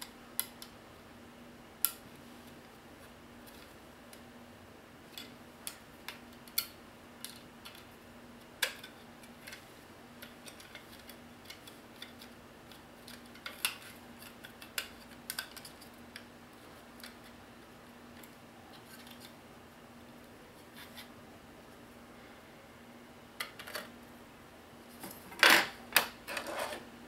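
Scattered small clicks and taps of a TV box's circuit board and plastic case being handled, under a faint steady hum. A louder cluster of knocks comes near the end as the board and case are set down on the desk.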